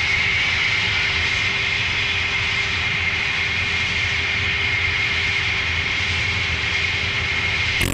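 A steady, loud mechanical drone with a constant high whine over a low rumble, like a running aircraft engine, cutting off abruptly near the end.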